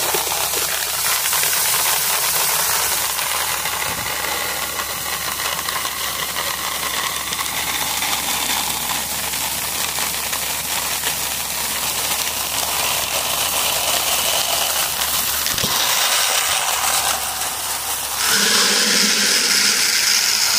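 Whole kernel corn pouring out of a vending machine's dispensing chute: a steady hissing rattle of kernels falling and scattering onto concrete and into a plastic bucket. It gets louder about 18 seconds in.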